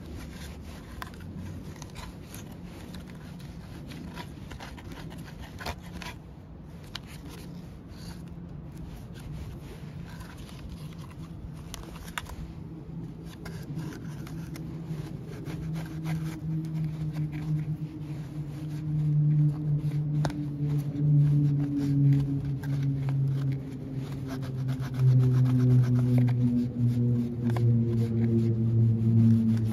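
A cloth and then a small brush scrubbing the plastic engine cover of a STIHL FS250 brushcutter: scratchy rubbing with small irregular scrapes and clicks. From about halfway a low hum comes in and grows louder, becoming the loudest sound near the end.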